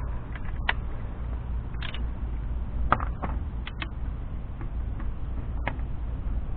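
Irregular light clicks and knocks of metal hand tools being handled, a torque wrench with its socket and adapter, over a steady low rumble.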